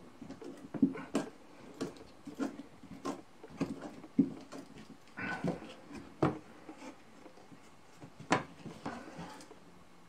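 Steel awl of a Victorinox Trailmaster pocket knife being twisted and pushed through a thin wooden stick to bore a hole: irregular clicks, creaks and short scrapes of metal reaming wood, a few of them louder.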